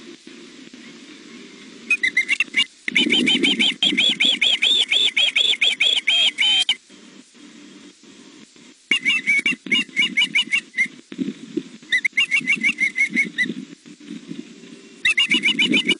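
Young osprey food calling: four bouts of rapid, repeated high chirps, each a few seconds long, with short pauses between. These are begging calls, asking for a fish delivery.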